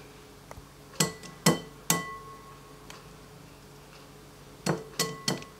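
Egg tapped against the rim of a glass mixing bowl to crack it, the glass ringing briefly after each knock: three taps about a second in, then three more near the end.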